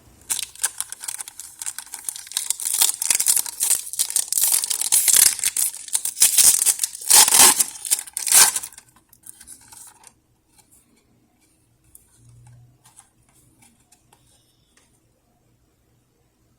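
Foil Pokémon card booster pack wrapper being torn open and crinkled: a dense crackling that dies down about nine to ten seconds in, then only faint occasional rustles.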